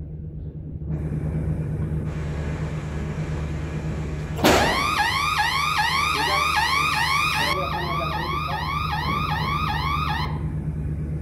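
A sharp click, then an electronic alarm hooter sounding a rising whoop about twice a second for about six seconds before it cuts off: the trip alarm of an 11 kV VCB switchgear panel going off during a protection relay test. A steady low hum runs underneath.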